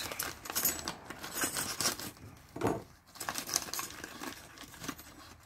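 Plastic parts bag crinkling and tearing as it is slit open with a utility knife, with small metal brake pad slider-spring clips clicking as they are taken out. Irregular rustles and light clicks.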